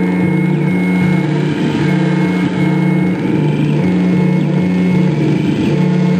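Electronic noise music from modified toy and homemade electronics played through a mixer. A loud, steady buzzing drone steps back and forth between two low notes every second or so, under a thin high whine, with short gliding chirps near the top.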